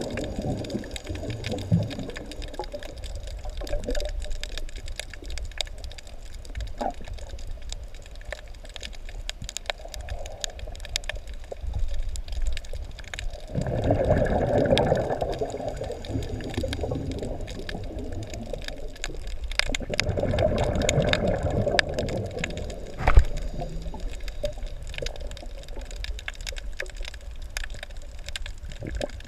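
Underwater audio through a camera housing: a steady muffled water sound with two longer, louder surges, about 14 and 20 seconds in, and a single sharp knock a little after the second.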